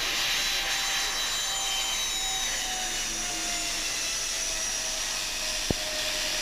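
Dornier Do 228's twin turboprop engines and propellers during a landing touchdown, a thin whine slowly falling in pitch over a steady rushing noise. A single sharp click about five and a half seconds in.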